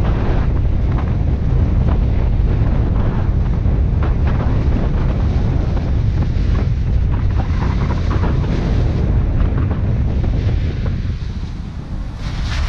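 Wind buffeting the microphone of a camera mounted outside a moving 2003 Subaru Forester, over a low rumble from the road. Scattered knocks and clicks come through from the dirt and slushy road surface, and the noise eases a little near the end.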